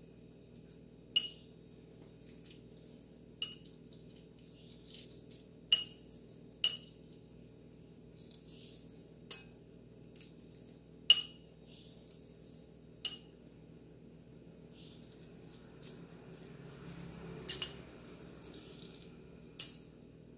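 A metal spoon clicking sharply against a chilled soft-boiled egg about nine times at uneven intervals as the egg is peeled, each click with a brief metallic ring. A soft rustling comes in a little past the middle.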